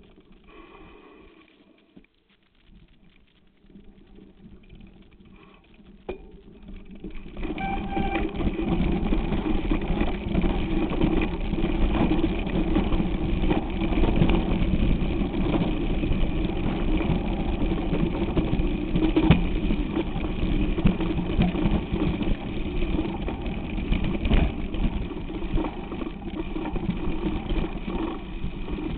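Wind rushing over the microphone and a mountain bike rattling and skidding over loose dirt and gravel as it descends fast, starting about seven seconds in and then steady.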